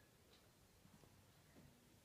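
Near silence: faint room tone with a few faint small ticks.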